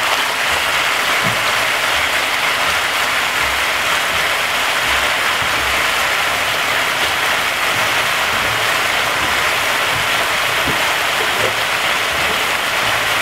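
Marinated chicken pieces frying in a little hot oil in a large aluminium pot: a steady, loud sizzle, the chicken browning before it is stewed.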